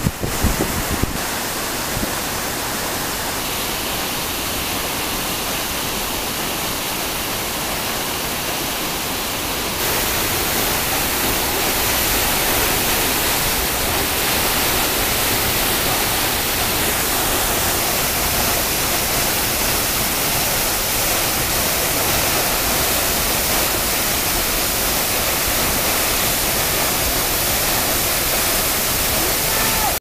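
Steady rush of a tall waterfall, an even hiss of falling water that steps up louder about ten seconds in.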